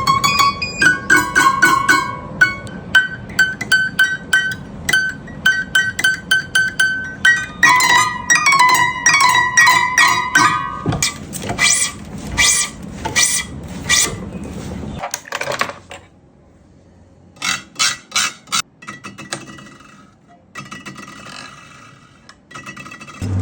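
Background music: a plucked-string melody of quick repeated notes over a steady pulse, thinning out about two-thirds of the way through before picking up again.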